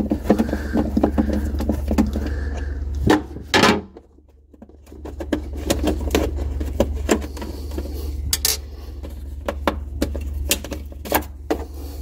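A screwdriver turns a screw out of the plastic air-filter holder inside an LG side-by-side refrigerator, with a few short squeaks. Then come scattered plastic clicks and knocks as the holder is worked loose and pulled out, over a steady low hum. The sound cuts out briefly about four seconds in.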